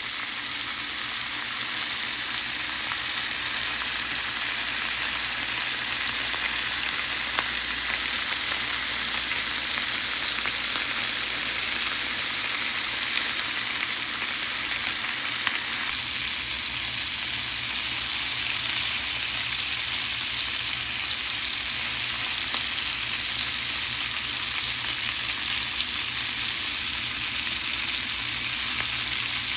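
Bacon-wrapped asparagus rolls frying, with a steady crackling sizzle throughout.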